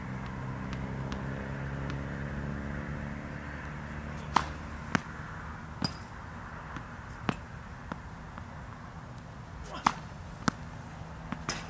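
Tennis serves: two sharp cracks of the racket hitting the ball, about five and a half seconds apart, each followed about half a second later by a second impact. Fainter ball bounces come in between.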